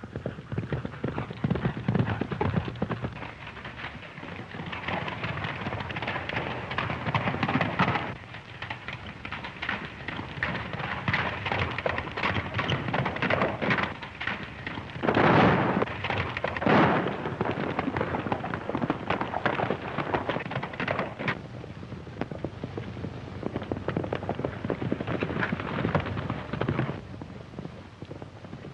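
Hoofbeats of galloping horses, a dense rapid clatter on an old film soundtrack, with two loud bangs about halfway through, a second and a half apart.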